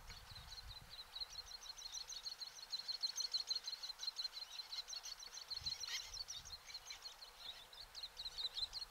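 Little terns calling: a rapid, unbroken run of short, high, sharp chirps, about five a second, with a brief click about six seconds in.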